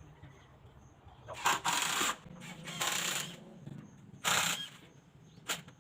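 A hand tool working wood in short rasping strokes, about five of them at uneven intervals, each lasting well under a second.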